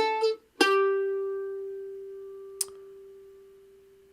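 Mandolin playing the end of a melody phrase: a short note cut off, then one last note struck about half a second in and left to ring and fade slowly, with a small click partway through.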